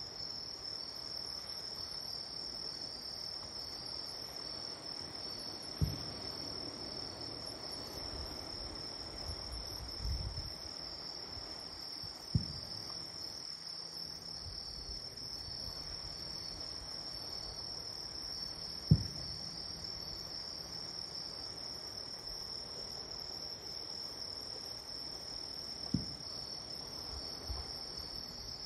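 Distant fireworks shells bursting as dull, low booms, four of them about six to seven seconds apart, the third the loudest. A steady, high-pitched insect chorus goes on under them.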